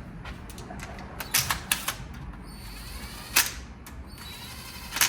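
Hand tools clicking and clinking against metal engine parts, with a handful of sharp metallic clicks and two short rasping stretches, each ending in a click.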